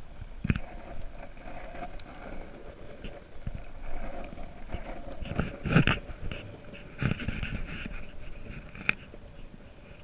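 Longboard rolling on asphalt: steady wheel and road noise, broken by a few short louder thumps, the strongest a little past the middle.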